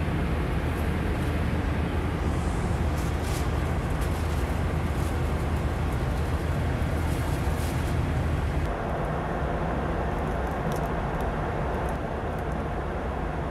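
Airliner cabin noise: a steady rush of engine and airflow noise with a deep rumble underneath. About two-thirds of the way through the sound shifts, with less low rumble and more midrange hiss, and a few faint ticks.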